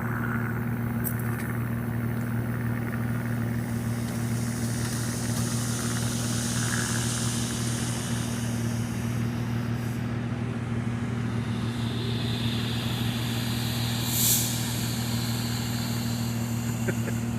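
Road traffic going by: a vehicle's rushing tyre noise swells and fades over several seconds, over a steady low engine-like hum. There is a brief high blip near the end.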